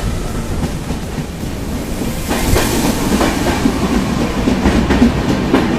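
Train running along the track: a steady low rumble with wheels clacking over rail joints, the clacks growing louder and closer together about two seconds in.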